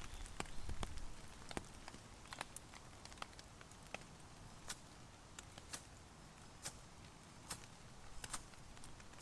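Wood campfire crackling: sharp, scattered pops about once a second over a faint steady hiss of rain.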